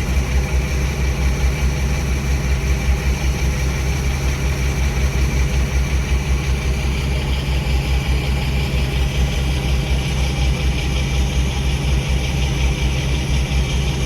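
Heavy diesel locomotive engine running steadily, with a fast, low, even throb.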